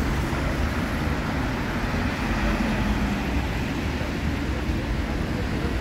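Steady city street traffic noise: car engines and tyres on wet asphalt.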